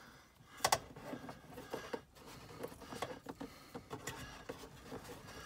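Small clicks, scrapes and rustles of a short screwdriver working against a cardboard glove box and the dash sheet metal around its screw holes, with one sharper click under a second in.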